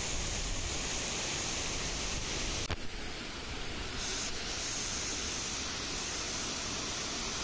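Waterfall rushing: a steady wash of falling water, broken by one brief click and dip about two and a half seconds in.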